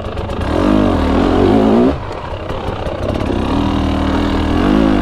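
KTM 300 EXC two-stroke dirt bike engine under throttle while riding, its revs rising and falling. The throttle shuts off sharply about two seconds in, and the revs build again after about a second.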